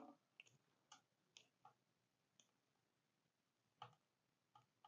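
Near silence with a handful of faint, irregular small clicks from handling a studio light's cord and its small plastic fittings.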